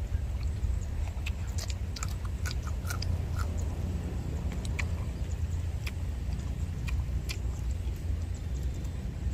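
Close chewing of grilled pork ribs and rice eaten by hand: scattered sharp mouth clicks over a steady low rumble.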